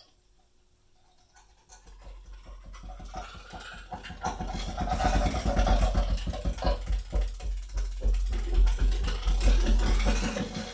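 A short pause, then a new music track starts on Yamaha NS-BP200 bookshelf speakers, fading in with dense, rapid, mechanical-sounding clicking and rattling percussion over deep bass that grows louder from about four seconds in.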